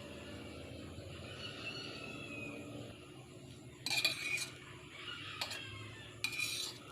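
Metal utensil scraping and clinking against a pan in two short bursts, about four and six seconds in, with a light click between them.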